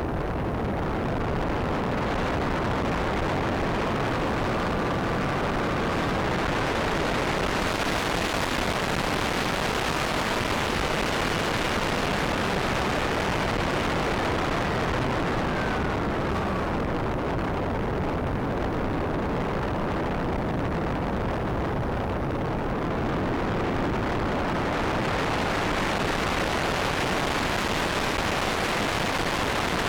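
Steady rush of wind and propeller noise on the onboard microphone of a Bixler foam RC plane in flight, with a faint electric-motor whine gliding up and down in pitch now and then.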